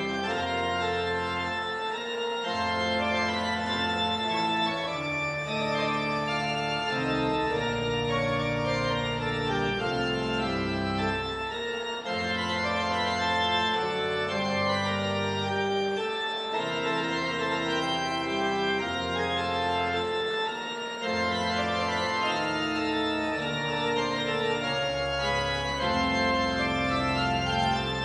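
Church organ playing the postlude: full sustained chords over bass notes that move every second or two.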